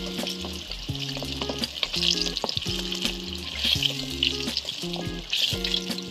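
Battered chicken pieces deep-frying in hot oil in a wok: a steady sizzle with scattered crackles, and light metal clicks as the browned pieces are scooped out with a metal skimmer.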